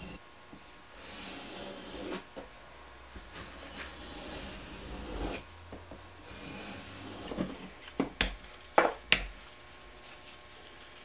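A high-carbon spring-steel knife blade drawn by hand across a sharpening stone: several slow scraping strokes. A few sharp clicks follow about eight to nine seconds in.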